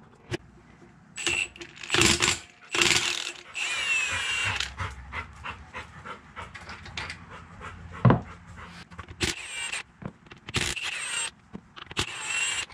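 Hammer blows ringing on a steel punch, marking the GM 10-bolt differential's main bearing caps, then the cap bolts being loosened with a ratchet: runs of small clicks broken by several short, louder mechanical bursts.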